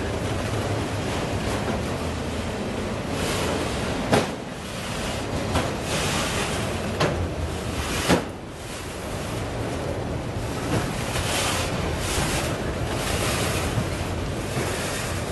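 Freight train of autorack cars rolling past close by: a steady rumble and rush of steel wheels on the rails. Four sharp clanks stand out, the loudest about eight seconds in.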